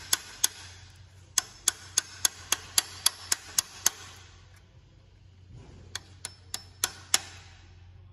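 Sharp metallic ticks or taps, evenly spaced at about three and a half a second, in runs of several with short pauses between, over a steady low hum.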